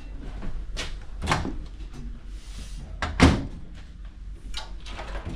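Doors inside an RV trailer being opened and shut: a few knocks and thuds, the loudest a heavy thump about three seconds in.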